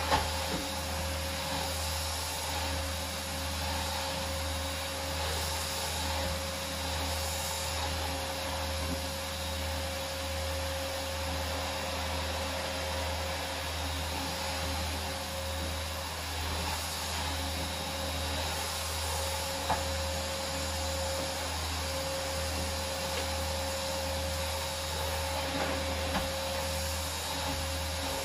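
Canister vacuum cleaner running steadily, a continuous motor hum with a steady whine and airflow hiss as it vacuums the floor. A few brief knocks stand out over it, the loudest right at the start.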